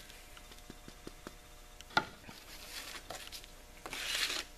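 Working the hand grain grinder and ground black powder: scattered light ticks and one sharp knock about two seconds in, then a gritty rustling that swells near the end.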